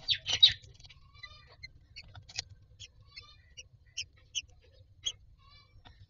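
Newly hatched common myna chicks making thin, repeated begging calls as the adult myna bends over them in the nest, with scattered short clicks. A loud, harsh burst of sound comes in the first half second.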